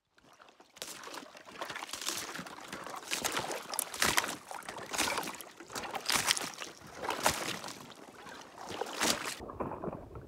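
Thin ice over shallow water being broken up: repeated crunching and cracking strokes about once a second, with water sloshing, cutting off suddenly about nine seconds in.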